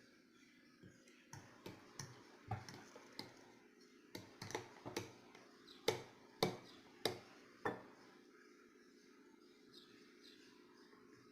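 A utensil clinks and knocks against a dish about a dozen times as batter is worked, the four loudest knocks coming quickly one after another a little past halfway. Faint bird chirps follow near the end.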